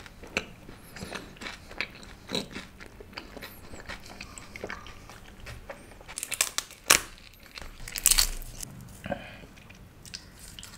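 Close-miked chewing of a mouthful of naan with rajma, raita and raw onion: wet, crunchy bites and smacking, with several louder crunches between about six and eight and a half seconds in.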